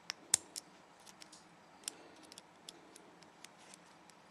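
Small, sharp metallic clicks and ticks at irregular intervals as a one-piece spiral gas ring is worked by hand into the ring groove of an AR-15 bolt. The loudest click comes about a third of a second in.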